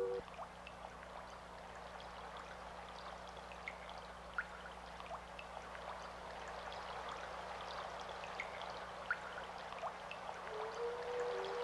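Water flowing and trickling like a small stream, a steady hiss scattered with irregular tiny drips and splashes. About ten and a half seconds in, two held musical tones fade in over it.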